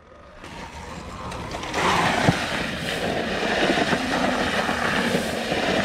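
Electric dirt bikes sliding through loose sandy dirt: tyres scrabbling and wind rushing over the microphone, building over the first two seconds and then holding steady, with a faint motor whine underneath.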